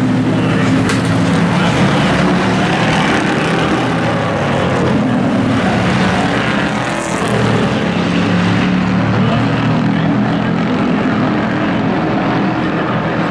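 Engines of several hobby-class racing pickup trucks running hard around a short oval track, a loud continuous mix of overlapping engine notes rising and falling as the trucks go by.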